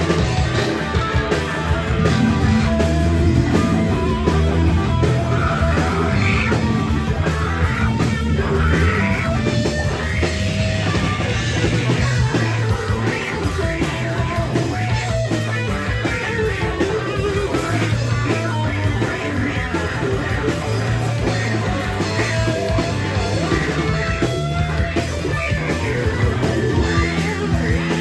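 Rock band playing live, with guitar, bass and drums, loud and continuous.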